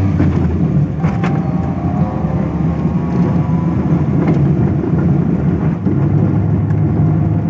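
Maruti 800's small three-cylinder petrol engine running steadily under load as the car is driven, a loud low drone. The car is unrepaired and noisy, and its owner is demonstrating the noise in the gears.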